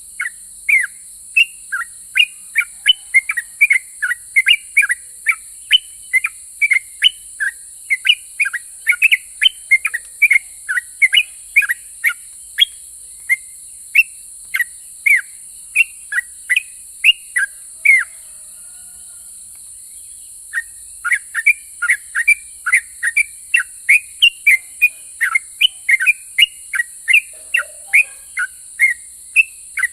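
Yellow-vented bulbul (trucukan) singing a fast, chattering run of short chirpy notes, several a second, each falling in pitch. The song breaks off for about two seconds after the middle and then resumes. A steady high-pitched hiss runs behind it.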